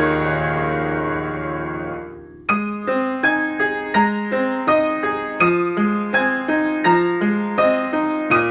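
Solo piano playing the accompaniment to a Japanese graduation choral song. A chord held on the sustain pedal dies away and breaks off about two and a half seconds in, then a new phrase of evenly paced notes follows, about two or three a second.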